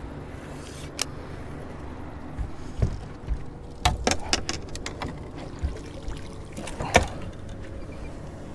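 A boat motor running steadily at trolling speed, with sharp clicks and knocks from gear being handled aboard, several of them around the middle and one loud knock near the end.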